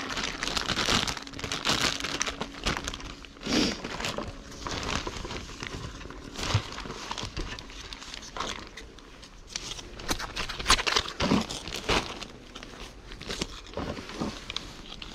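Clear plastic bag of dry cat food crinkling and rustling as it is handled and opened, in uneven bursts with scattered sharp clicks.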